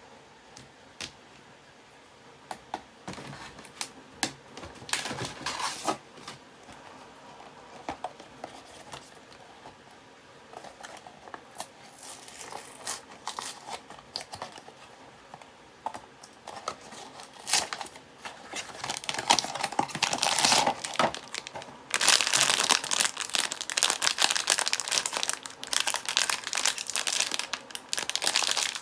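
Hands handling and opening a small cardboard blind box, with scattered taps and short rustles, then, about two-thirds of the way in, the loud continuous crinkling and tearing of a foil wrapper bag being opened.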